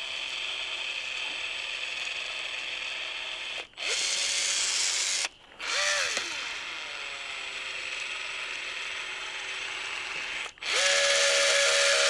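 Power drill running in several stretches of a few seconds with brief pauses, driving screws through the fastening flange of a standing seam metal roof panel. The motor pitch drops as it winds down partway through.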